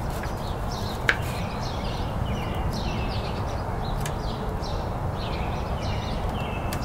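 Small birds chirping repeatedly in short, quick downward notes over a steady background hiss, with one sharp click about a second in.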